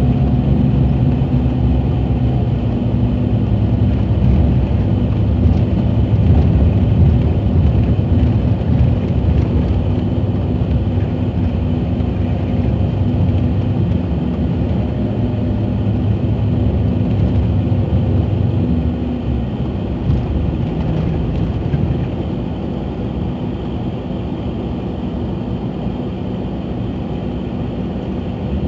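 Scania DC12 06 inline-six diesel engine of a Scania K380 coach, heard from inside the coach while it drives, running with a steady low rumble. About two-thirds of the way through it gets noticeably quieter and stays so.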